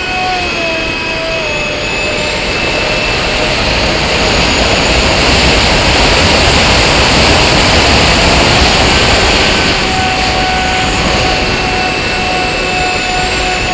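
Electric motor and propeller of a T1 Ranger RC plane whining in flight, heard from an onboard camera with heavy wind rush. The whine drops in pitch in the first couple of seconds as the throttle comes back, is mostly drowned by rising wind noise through the middle, then returns steady from about ten seconds in.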